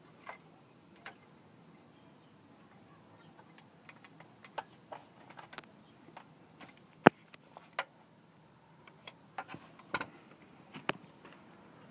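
Irregular small clicks and knocks of hands handling parts and wiring in an opened stair lift carriage, the sharpest about seven seconds in and another near ten seconds.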